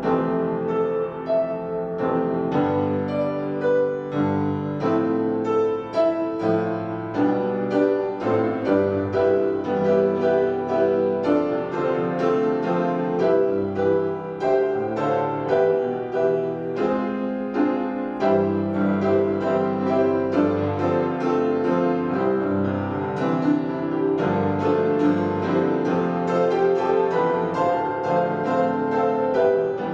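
Solo piano playing a slow, melodic piece with chords and a steady stream of notes.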